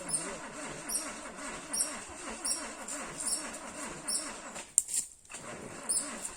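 Small two-stroke chainsaw engine running with a quickly wavering speed, briefly dropping off a little after halfway, with short high chirps about once a second.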